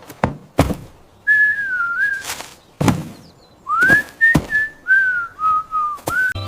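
A tune whistled in two short phrases, one single note line sliding between pitches, with several sharp knocks between the phrases.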